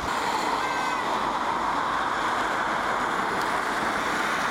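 Torrential rain falling, a steady hiss.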